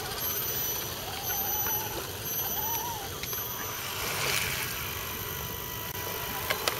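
Electric motors of radio-controlled scale crawler trucks whining, rising and falling in pitch with the throttle, over the crunch of their tyres in mud. About four seconds in, one splashes through the puddle close by, and a few sharp clicks come near the end.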